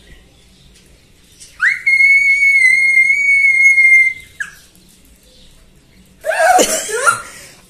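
A person's high-pitched squeal of excitement, swept up sharply and then held on one steady note for about two and a half seconds before dropping away. Voices follow near the end.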